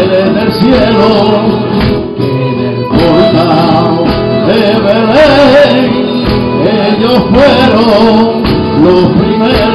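Flamenco villancico in the alegría style, played on two flamenco guitars strumming and a violin carrying a wavering melody.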